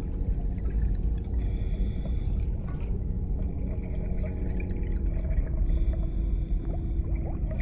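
Underwater ambience from an animated film's sound design: a steady low rumble of water, with faint held high tones that come in twice.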